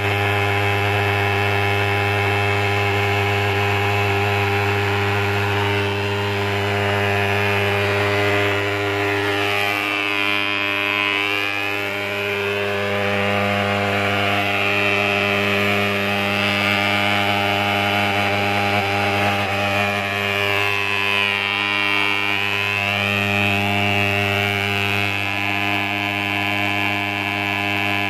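Swingfog thermal fogger's pulse-jet engine running steadily as it blows out insecticide fog: one loud, even, pitched drone that wavers only slightly.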